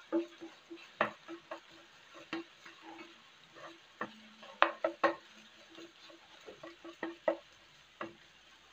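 Plastic spatula stirring and scraping diced ham and scrambled egg around a nonstick frying pan, with irregular clicks and knocks against the pan over a light sizzle. A faint low hum pulses about twice a second underneath.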